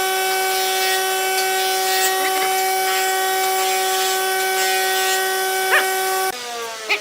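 Lathe motor running at steady speed with a whine. A few short squeaks come over it. About six seconds in the motor is switched off and its pitch falls as it spins down.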